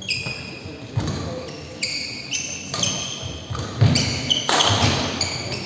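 Badminton rally: players' court shoes squeak repeatedly on the court floor in short, high chirps, with low footfall thuds and a few sharp racket strokes on the shuttlecock, in a reverberant hall.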